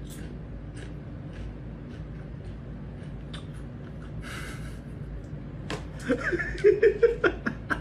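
Faint scattered clicks and a brief rustle of cat litter pellets as a kitten moves about in a litter box. From about six seconds in, a person laughs in loud, choppy bursts.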